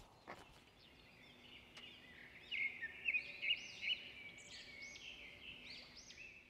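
Birdlike chirping: a run of short, high notes, each rising and falling, starting about one and a half seconds in and loudest near the middle.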